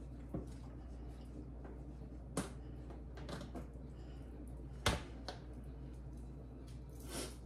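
A few scattered sharp clicks and taps from kitchen utensils and containers being handled, the loudest about five seconds in, over a low steady hum.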